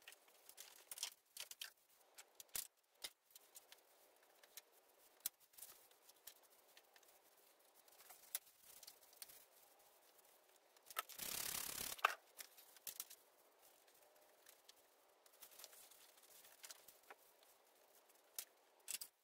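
Faint rustling and scattered small clicks of a shop rag wiping leaked oil off a mower's metal frame. A short burst of rushing noise lasting about a second comes a little past the middle and ends in a sharp click.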